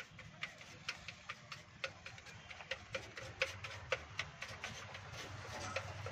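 A run of sharp, irregular clicks, about two to three a second, over a low steady hum.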